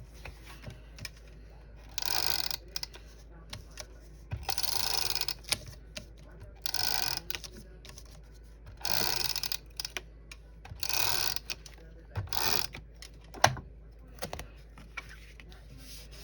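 Paper and cardstock being handled at a craft table, with about six short rustling, scraping bursts and a single sharp tap near the end.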